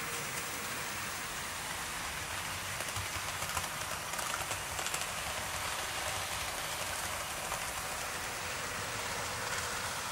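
OO gauge model trains running around the layout, Gresley A4 locomotives hauling coaches: a steady rushing rumble of wheels rolling on the track, with a few light clicks a few seconds in.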